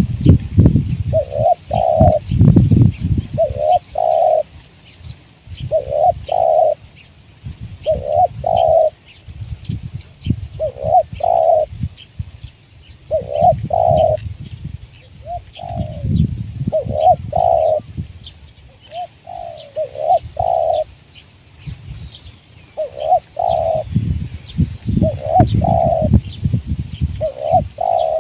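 Spotted dove cooing: a short two- or three-note coo, repeated about every two seconds, some dozen times. Behind it are faint high chirps and a low rumbling noise.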